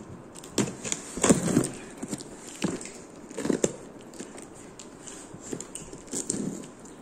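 Hands handling and picking at a taped cardboard shipping box: irregular knocks, scrapes and rustles, a few louder than the rest.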